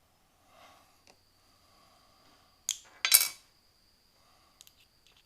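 Small stainless steel pen-kit parts being handled, clinking against each other and a hard surface: a few light ticks, then a sharp click and a short, louder metallic clatter about three seconds in.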